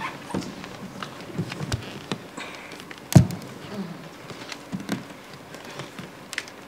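Bare feet and hands tapping and shuffling on a wooden stage floor, with one louder thump about three seconds in.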